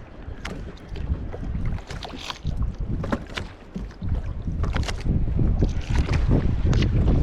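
Wind buffeting the microphone on a small drifting plastic boat, with scattered sharp knocks and brief splashes of water against the polyethylene hull. It grows louder in the last two seconds.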